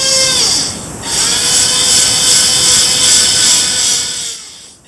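Small electric gear motors in a 1/32 scale RC dozer's blade actuators whining as they tilt the blade. One run stops about half a second in, and a second run starts about a second in and stops near the end.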